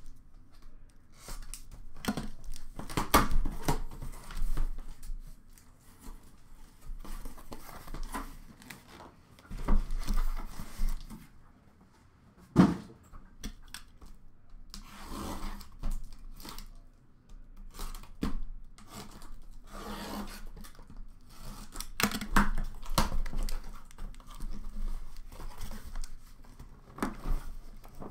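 Cardboard shipping case being opened by hand: packing tape torn off and cardboard flaps and inner cases scraped, rubbed and knocked as they are pulled out, in irregular strokes with a few sharp knocks.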